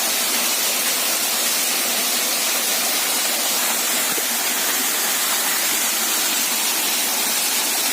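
Waterfall rushing: a steady, loud wash of falling water with no change.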